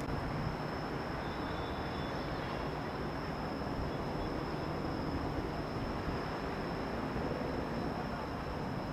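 Steady distant city and harbour hum with no distinct events, and a thin steady high whine running through it.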